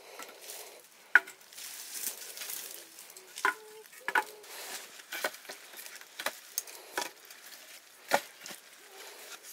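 Cooking utensils knocking and clicking at irregular intervals, about once a second, a few of the knocks with a brief metallic ring.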